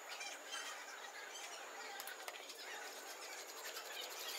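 Faint, scattered small clicks and light scratching of hands and a small tool working over an aluminium foil tray, with two sharper clicks about two seconds in.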